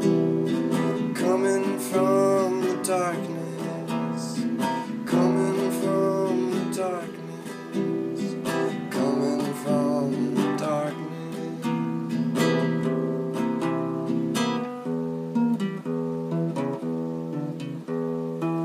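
Acoustic guitar strumming chords in the instrumental outro of a song, after the last sung line.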